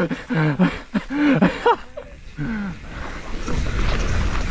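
A man's voice in a string of short wordless exclamations, each syllable bending up and down in pitch. In the last second and a half a steady rushing noise builds: wind on the helmet camera's microphone and tyre noise as the mountain bike rolls on.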